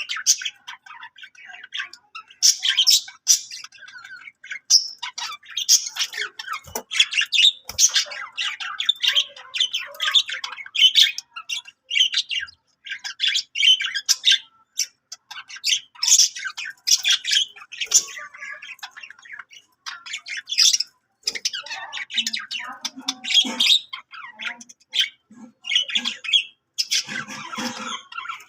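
Budgerigar warbling and chattering continuously in quick, irregular chirps, with sharper squawks mixed in and a lower, rougher chatter near the end.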